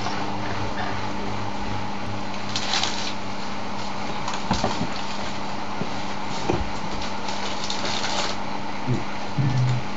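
Siemens Siwamat iQ front-loading washing machine running: a steady hiss over a low hum, with a few light knocks and clicks.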